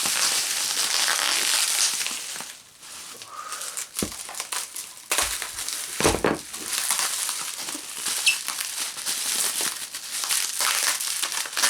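Packing material crinkling and rustling as it is pulled off by hand. There is a short pause about two and a half seconds in, and a few louder handling knocks a little later.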